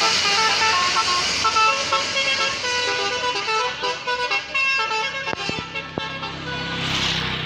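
Bus telolet horn playing a quick melody of short tooting notes that step up and down in pitch.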